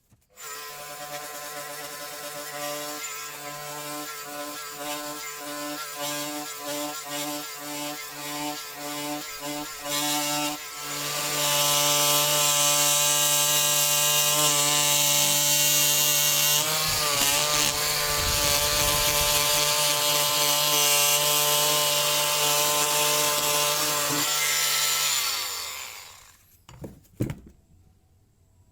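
Ryu RMT 6 oscillating multi-tool running with a steady buzzing hum, its blade working against wood. For the first ten seconds the blade touches the work on and off, then it cuts in continuously and louder until the tool switches off near the end, followed by a couple of knocks.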